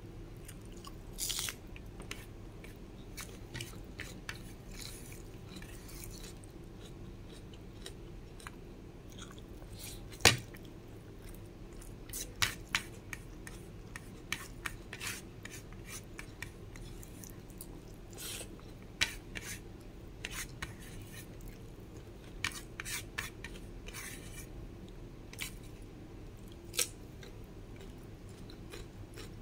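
Close-up eating sounds: chewing rice with wet mouth clicks, and fingers scraping grains off a plate. Short clicks come irregularly throughout, with one sharp click about ten seconds in, over a low steady hum.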